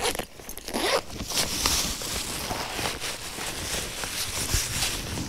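Zipper on a fabric rucksack being pulled open, with the pack's fabric and contents rustling as it is rummaged through.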